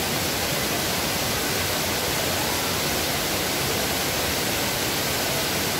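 Rushing water from a canyon stream or waterfall, a steady, even noise.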